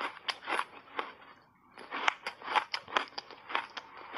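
Mouthful of refrozen block ice, coated in matcha and milk powder, crunching sharply between the teeth as it is chewed: a quick run of crunches with a short pause about a second and a half in.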